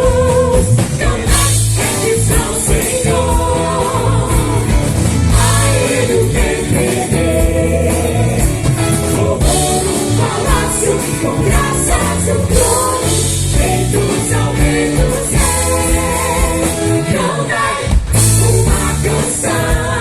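Live gospel worship music: a singer over a band with bass and drums. The sound drops out for an instant near the end.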